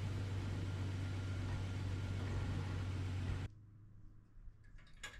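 Toyota Tacoma pickup engine idling with a steady hum, cutting off abruptly about three and a half seconds in. After that it is much quieter, with a single click near the end.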